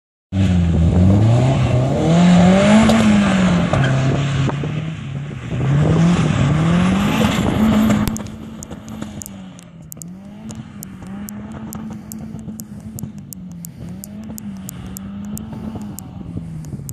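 Turbocharged 1982 BMW 320i accelerating hard, its engine revving up in repeated rising pulls as it changes gear, loud for the first eight seconds. It then drops away quieter, the revs rising and falling gently as it drives on.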